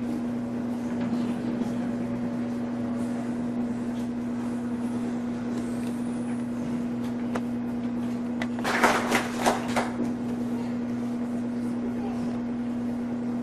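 Steady low electrical hum with faint room noise, broken about nine seconds in by a quick run of five or six sharp knocks or claps lasting about a second.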